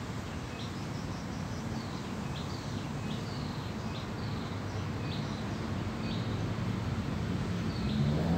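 A small bird chirping repeatedly, short high calls about once or twice a second, over a steady low background rumble. Near the end a motor vehicle's engine rises in pitch.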